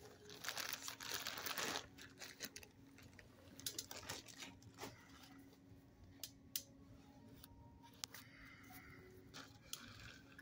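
Rustling and crinkling for about a second and a half near the start, then scattered small clicks and taps over a faint steady hum.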